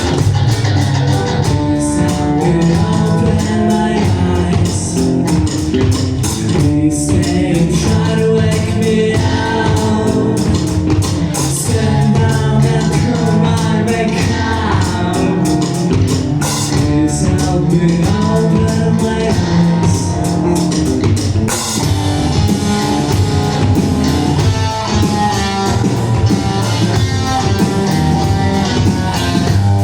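A rock band playing live: guitars and drum kit with a sung vocal line.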